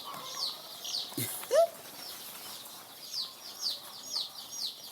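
A brood of three-day-old layer chicks peeping: many short, high, falling chirps overlapping steadily. One louder, lower rising call comes about a second and a half in.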